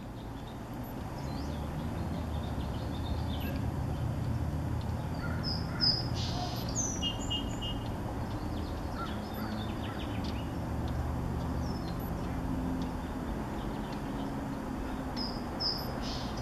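Birds calling and chirping in short, high, scattered notes, some in quick repeated runs, over a steady low background rumble.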